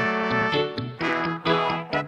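Dub reggae music with a horn section, trombone and trumpet, playing short, punchy phrases over the rhythm.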